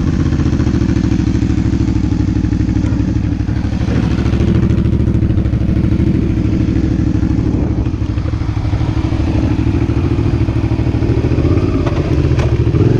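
Suzuki SV650's 90-degree V-twin idling steadily through a Roadsitalia Projsix slip-on exhaust with the baffle fitted, a low, evenly pulsing exhaust note.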